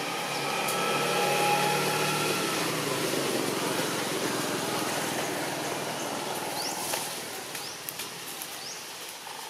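A motor vehicle passing by: a steady engine hum whose note dips about two seconds in, then road noise that fades away. A few faint clicks and short high chirps come near the end.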